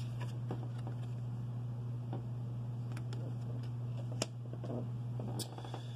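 Quiet room with a steady low hum and a few faint clicks and taps of tarot cards being handled on a cloth-covered table, one sharper click about four seconds in.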